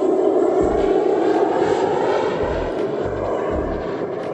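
Pilatus PC-12 NG single-engine turboprop (Pratt & Whitney Canada PT6A) passing overhead on its landing approach, the drone of its engine and propeller slowly fading as it flies away. A few brief low rumbles come and go in the middle.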